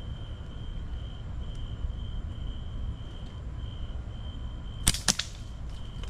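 A rubber-band slingshot is released with two sharp cracks close together about five seconds in.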